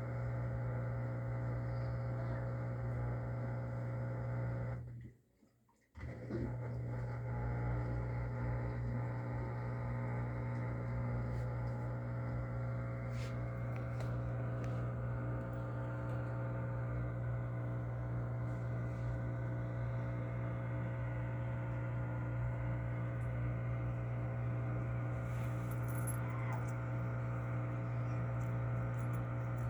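LG Inverter Turbo Drum washing machine running with a steady hum, its drum not going into spin: the pressure switch's water-level signal is not triggering the spin order. The hum cuts out for about a second roughly five seconds in, then resumes.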